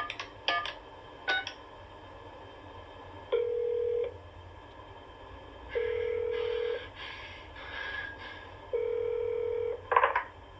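Desk telephone on speakerphone: the last few keypad tones of a number being dialled, then the ringback tone sounding three times, each about a second long and about two seconds apart. Another quick burst of keypad tones comes near the end.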